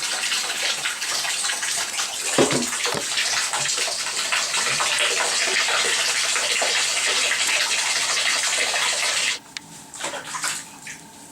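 Hair dryer blowing with a steady rushing noise, switched off abruptly about nine seconds in; a few faint clicks follow.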